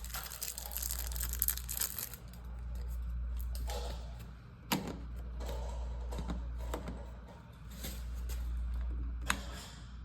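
Handling of a plastic light-switch cover plate and its packaging: a crinkly rustle for about the first two seconds, then a few light plastic clicks and taps, two of them sharper, over a steady low hum.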